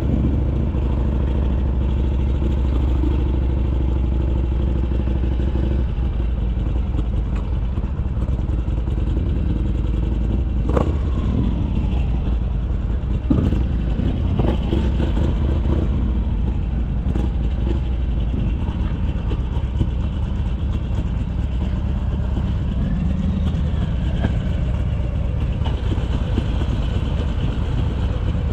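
Harley-Davidson Iron 883's air-cooled V-twin running through an RSD Roland Sands 2-into-1 exhaust. The note is steady for about the first six seconds, then turns uneven, with two sharp knocks near the middle.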